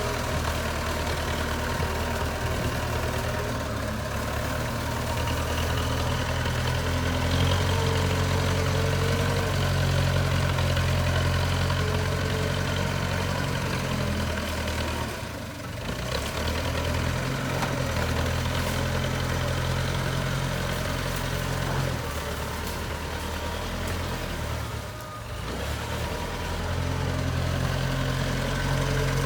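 JCB 3CX backhoe loader's diesel engine running steadily, with its sound briefly dropping away twice.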